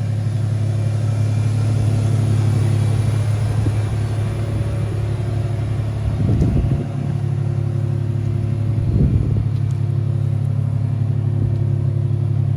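Pickup truck driving while loaded with heavy oak slabs: a steady low engine and road drone, with two brief low rumbles about six and a half and nine seconds in.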